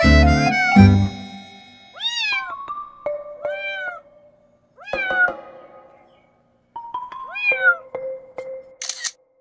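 Kitten about a month old mewing about five times, each a short high call that rises then falls in pitch, over background music. A brief hissy noise comes near the end.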